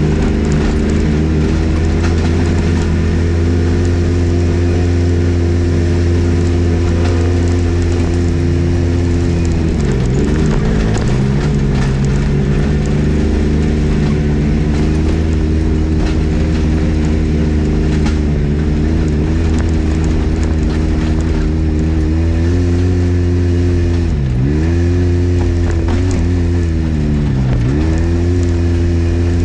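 Polaris RZR XP 1000 side-by-side's parallel-twin engine running steadily under throttle on a trail. Its revs drop sharply and pick back up about a third of the way through, and twice more near the end.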